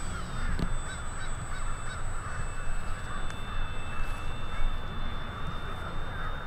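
Wind rumbling on the microphone while a small electric RC airplane flies overhead, its motor and propeller giving a faint, steady high-pitched whine.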